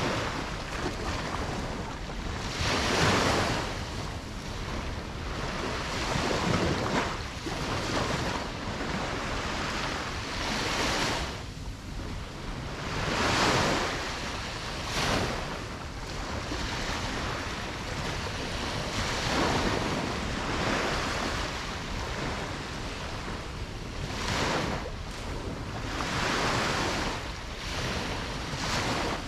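Ocean waves breaking and washing on a beach, a surge every few seconds over a steady hiss of surf, with some wind on the microphone.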